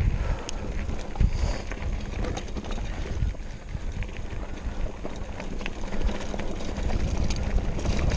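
Mountain bike rolling over a rocky gravel trail: tyres crunching and bumping on loose stone, with scattered clicks and rattles from the bike and wind rumbling on the action camera's microphone.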